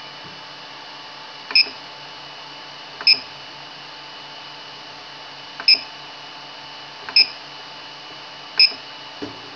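Creality Ender 3 3D printer: its cooling fans hum steadily while five sharp clicks, each with a brief ringing tone, come at uneven gaps of about one and a half to two and a half seconds.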